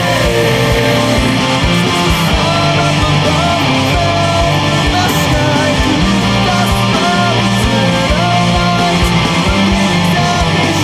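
Instrumental death metal passage: distorted guitars and a rapid drum beat, with a melodic line above that bends and slides in pitch.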